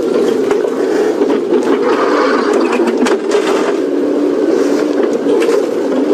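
Open safari vehicle driving slowly off-road over rough ground, its engine running steadily, with frequent knocks and rattles from the body bouncing.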